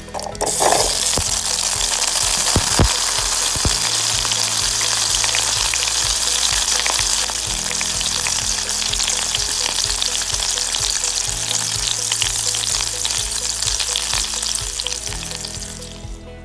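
A pot of water at a rolling boil, bubbling and hissing with many small crackles. The sound starts about half a second in and fades near the end.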